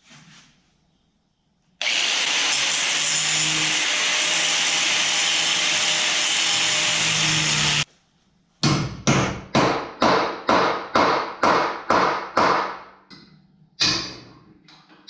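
A power cutting tool runs steadily for about six seconds, cutting off steel parts on a truck frame, then stops. After a short pause come about ten sharp metal impacts, roughly two a second, each dying away, and one more a little later.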